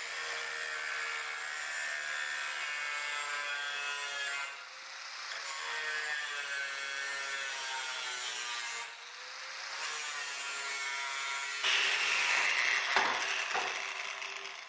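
Electric angle grinder grinding the end of a steel fuselage tube to fit, its motor whining steadily with two brief dips as the disc eases off the work. Near the end it bites harder and louder, then lifts off and begins to spin down.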